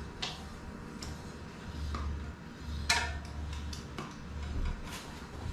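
Scattered light metallic clicks and clinks of hand tools on e-bike parts at the wheel hub and disc brake, the sharpest click about three seconds in, over a low hum.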